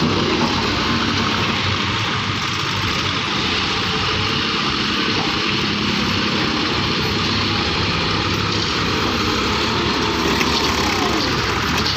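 John Deere 5310 tractor's diesel engine running steadily at a constant speed.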